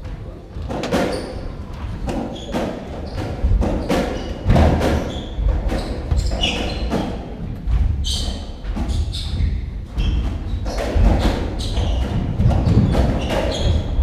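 Racketball rally on a squash court: the hollow ball struck by the racket strings and thudding off the walls and wooden floor, in quick irregular succession, with short squeaks of court shoes on the floor.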